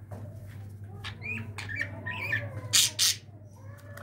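Budgerigar calling in short, wavering chirps, then giving two loud harsh squawks in quick succession about three seconds in. The owner takes the calling as the male looking for his dead mate.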